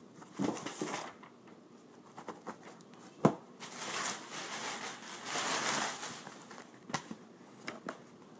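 Packaging rustling and crinkling as a box is rummaged through for small parts. There is a sharp knock about three seconds in, a longer stretch of rustling after it, and a few light clicks near the end.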